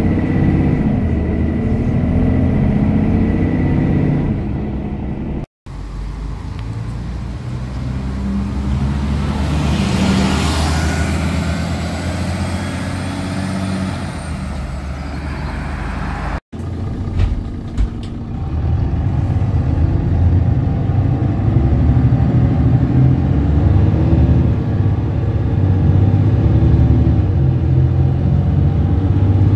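Mercedes-Benz Citaro city bus diesel engine running under acceleration, heard from inside the passenger cabin. After a cut, a bus drives past on the road, its sound swelling and then fading. After another cut, the engine is heard from inside a bus again, growing louder as it accelerates.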